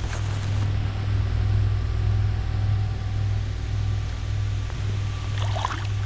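Steady low rumble of wind buffeting the camera microphone, with faint water sounds as a smallmouth bass is let go in shallow river water.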